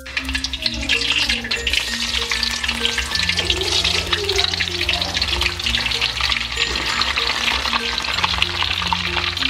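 Raw sweet potato slices deep-frying in hot oil in a wok: a dense, crackling sizzle that starts suddenly as the first slices go in and keeps going steadily.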